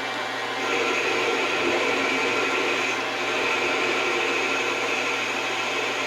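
Metal lathe running steadily with a constant motor hum under a continuous hiss.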